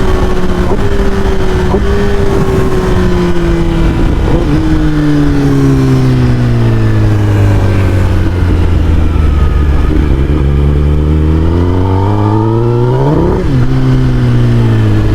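Sport motorcycle engine running loud, its pitch falling steadily for about ten seconds as it slows, then a quick sharp rev about thirteen seconds in that drops straight back down.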